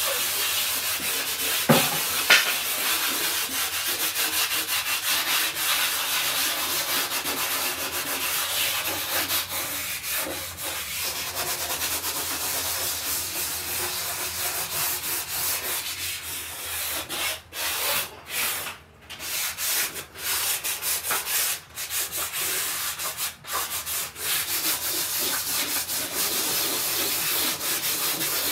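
A painted interior wall being sanded, a steady rasping rub as surface preparation before repainting. There are two light knocks about two seconds in and a few short pauses in the rubbing about two-thirds of the way through.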